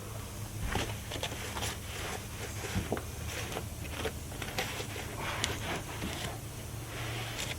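Sandpaper being rubbed over car bodywork in short, irregular strokes, over a steady low hum.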